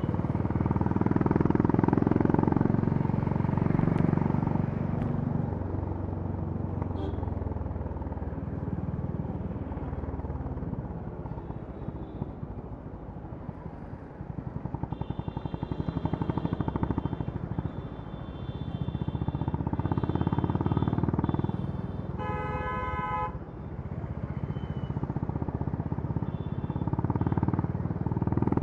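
Exhaust of a 2021 Honda CB350 RS's air-cooled single-cylinder engine, recorded close while riding in slow city traffic: the engine pulls harder near the start, eases off to low revs in the middle, then picks up again. A vehicle horn honks once for about a second and a half, some 22 seconds in.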